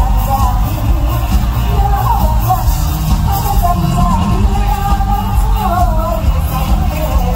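A woman singing an Isan mor lam tey song into a microphone over band music with strong bass.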